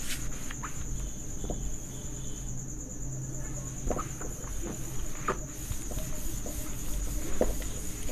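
A cloth duster rubbing across a whiteboard in a handful of short, irregular wiping strokes. A steady high-pitched whine runs underneath.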